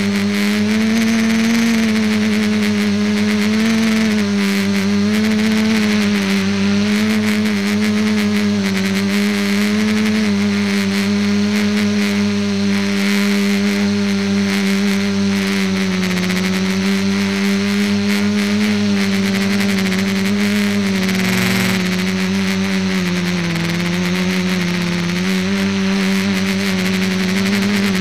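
The ETFD2 multicopter's electric motors and propellers in flight, heard from a camera on board: a steady buzzing hum whose pitch wavers slightly up and down, over a constant hiss.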